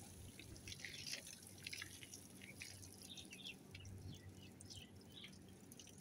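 Faint, irregular splashing and dripping of water from a hose spraying an elephant.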